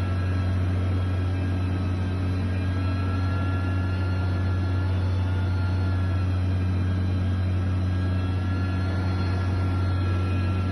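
Heavy construction machine's diesel engine running steadily with a deep, constant hum and a faint higher whine over it.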